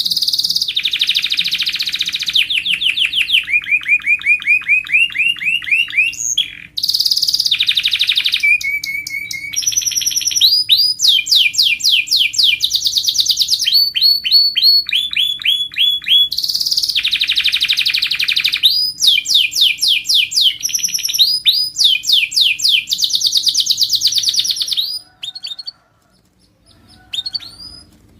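Domestic canary singing a long, loud song of rapid trills, each phrase a fast run of the same rising or falling note repeated many times before switching to a new one, used as tutor song to train contest canaries. The song stops about 25 seconds in, leaving only a few faint notes.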